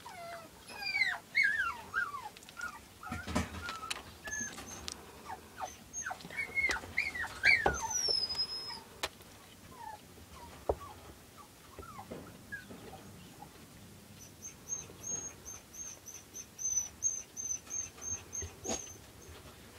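Newborn toy poodle puppies squeaking and whimpering in short, high cries that fall in pitch, then a quick run of thin, very high squeaks, about two or three a second, in the last few seconds.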